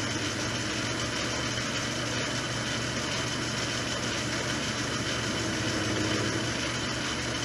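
Metal lathe running steadily, a constant machine hum and hiss, as a half-inch ball end mill is fed into a spinning brass workpiece to cut a cup.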